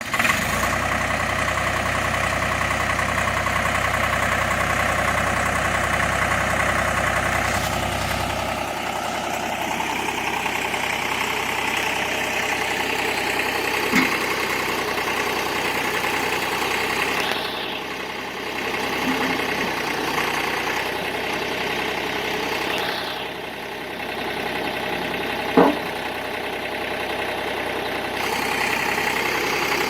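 Deutz F3L912 three-cylinder air-cooled diesel engine of a Ditch Witch 5110DD trencher running steadily at idle. The sound shifts in strength a few times, and there is a short knock about 14 seconds in and a louder one about 26 seconds in.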